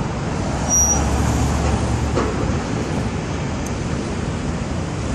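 Steady rumble of distant traffic with wind on the microphone; a deeper rumble swells about a second in, along with a brief high squeal.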